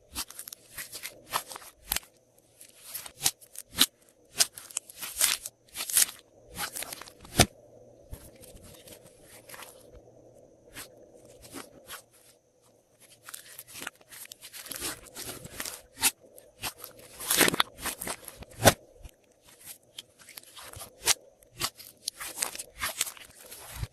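Glossy slime being squished and mixed by hand, giving irregular crackling clicks and pops, with a quieter stretch about a third of the way in.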